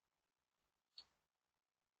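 Near silence: faint background hiss, with a single faint click about a second in.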